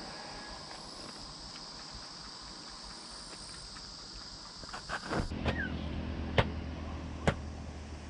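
Insects shrilling steadily in a high even buzz. About five seconds in the buzz stops and a low rumble begins, with two sharp knocks about a second apart.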